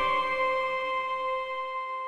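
The end of a Samsung Galaxy S10 ringtone: a held chord that slowly fades out after the melody stops.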